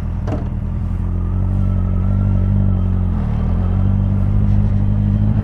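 Yamaha XJR1200 motorcycle's air-cooled inline-four engine running at a steady, moderate road speed, heard from the rider's seat. Its pitch dips briefly about three seconds in and then picks back up.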